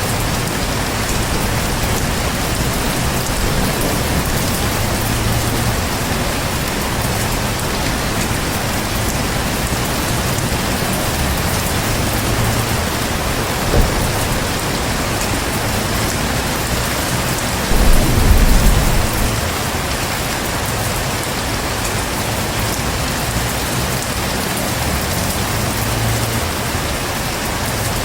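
Heavy rain falling steadily in a dense, even hiss. About two-thirds of the way in, a short low rumble of thunder rises over it for a second or two, after a single sharp tap a few seconds earlier.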